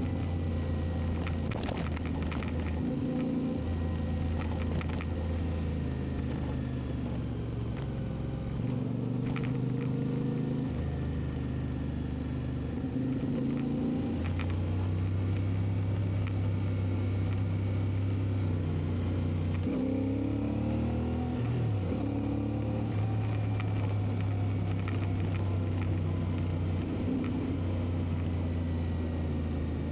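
CFMoTo 450 MT parallel-twin engine running steadily under way, its note rising and falling with throttle changes every few seconds. Around two-thirds of the way through the revs sweep up and down quickly. A few light knocks are heard early on the ride.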